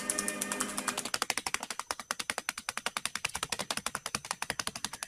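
A blue masked lovebird working paper with its beak: a rapid, even run of dry clicks like a ratchet.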